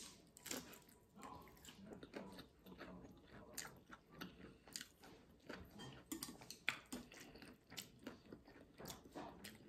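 A person biting into and chewing crisp fried boiled egg close to the microphone: an irregular run of small crunches and mouth clicks.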